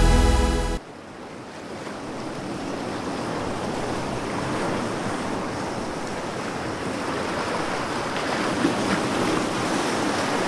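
Music cuts off abruptly under a second in, giving way to a steady rushing of ocean surf that starts quieter and slowly swells.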